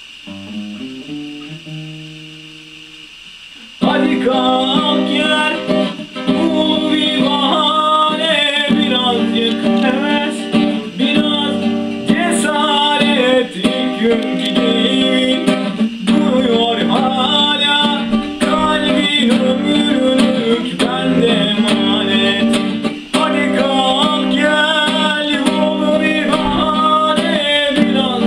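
Acoustic guitar: a few quiet single notes ringing out, then from about four seconds in loud, steady strumming with a young man singing over it.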